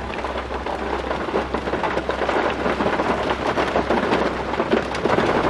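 Hail and rain falling hard, the hailstones pelting the gravel and the truck in a dense, steady clatter of small impacts, with a low rumble underneath.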